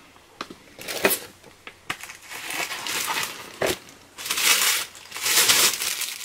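Clear plastic wrapping crinkling and rustling as it is pulled off a resin wand, with a few sharp clicks in the first couple of seconds and two loud bursts of crinkling near the end.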